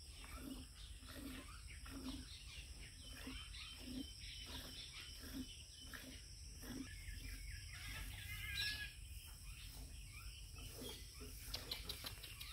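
Milk squirting into a steel pail as a cow is hand-milked, in a steady rhythm of about two squirts a second. Birds chirp in the background, most clearly about two-thirds of the way through.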